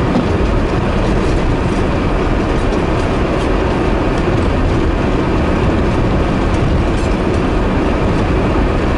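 Car driving through deep, rutted snowpack: a loud, steady rumble of tyres and underbody pushing through the snow, with a few light clicks scattered through it.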